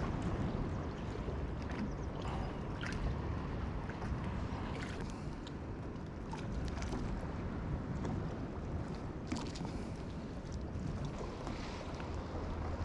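Seaside ambience of a low, steady wind rumble on the microphone and water, with scattered small clicks and taps.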